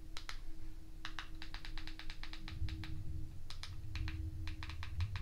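Quick, light clicks of button presses as an on-screen keyboard is navigated by remote, a fast run of them about one to three seconds in and scattered single clicks around it, over a faint low hum.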